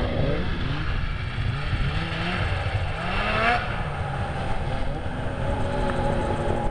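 Snowmobile engines revving, the pitch rising and falling with the throttle, with a sharp climb about halfway through and then a steadier note near the end.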